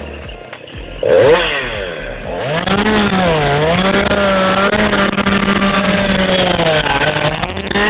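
Chainsaw engine revving up sharply about a second in and running at high speed, its pitch dipping and recovering midway, then holding steady.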